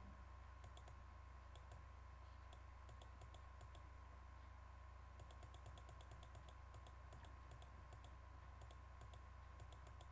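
Near silence over a steady low hum, broken by faint runs of quick clicks at a computer several times.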